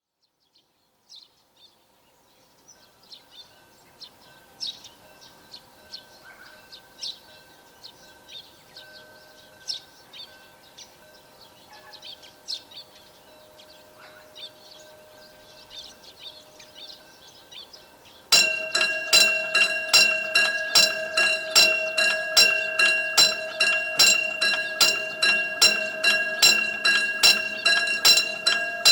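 Birds chirping, then about two-thirds of the way in a railway level-crossing warning bell starts up, striking evenly about twice a second and much louder than the birds. The bell signals that a train is approaching the crossing.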